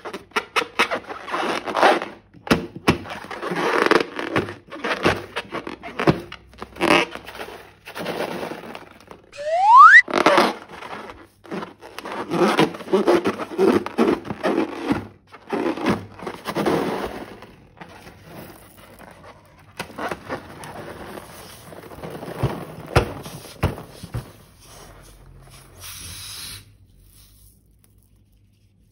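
Slime being squeezed and squished by hand: an irregular run of wet, crackling squelches, with one short rising squeak about ten seconds in.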